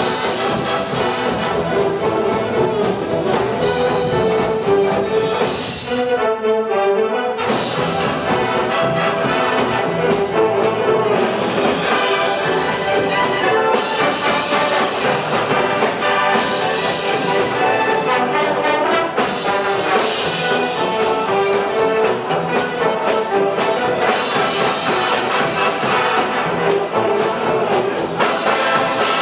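High school brass band playing loudly, brass to the fore, with a brief break about six seconds in where the high notes drop away before the full band comes back in.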